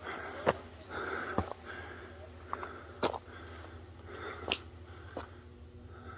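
Footsteps on a gravel and dirt trail: irregular soft crunches with a few sharp clicks.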